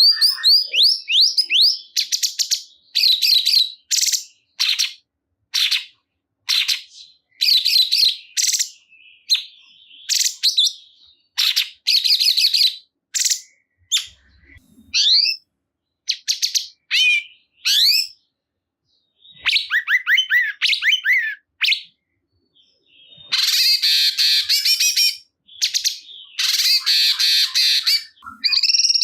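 Cungkok songbird singing loudly in bursts of fast, high chirps and rapid trills, phrase after phrase with short pauses between them.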